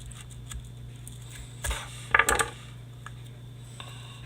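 A metal tool clinking and rattling against a hard surface in a short cluster of bright clinks about two seconds in, after a lighter click just before.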